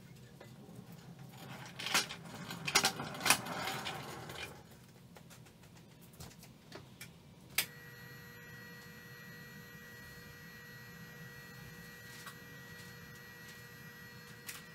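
A couple of seconds of knocks and rattles from workshop handling, then a sharp click about halfway through, after which a steady electrical hum with a thin high whine carries on.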